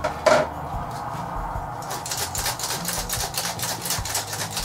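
Hand-operated metal flour sifter being worked over a bowl: its mechanism clicks and scrapes in a steady rhythm, about five strokes a second, as flour passes through the mesh. There is a brief louder sound just after the start, and the clicking becomes quicker and more even about two seconds in.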